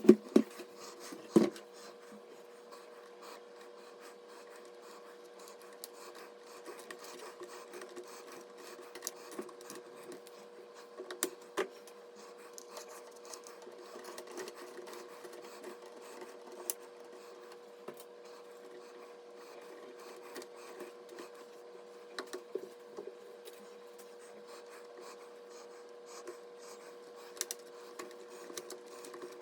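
Hands working on computer parts: scattered small clicks, knocks and rubbing, with two sharper knocks near the start, over a steady faint hum.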